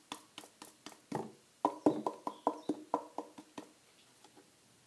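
Hand soap being emptied from an upturned plastic bottle with its pump top off: a quick run of clicks and glugs, about five a second, that stops about three and a half seconds in.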